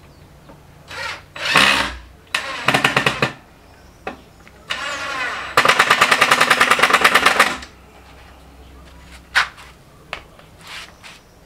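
Cordless drill driving screws into a wooden frame in several short bursts. The longest run, past the middle, spins up with a rising whine and then goes into a fast, even rattling hammer for about two seconds.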